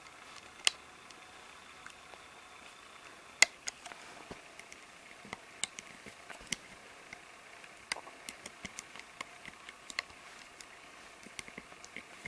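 Scattered small clicks and taps of a hook and rubber bands against a plastic Rainbow Loom as bands are hooked over the pegs, with two sharper snaps, one under a second in and one about three and a half seconds in.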